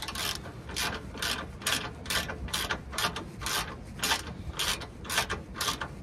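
Socket wrench ratchet clicking in a steady back-and-forth rhythm, about two swings a second, running down a nut on a front sway bar bushing bracket to snug it.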